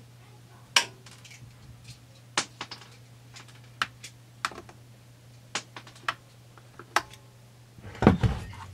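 Scattered light clicks and taps of a screwdriver against the plastic and metal around a Husqvarna 455 Rancher chainsaw's carburetor as the primer bulb is worked free, with a louder clatter of handling near the end. A steady low hum runs underneath.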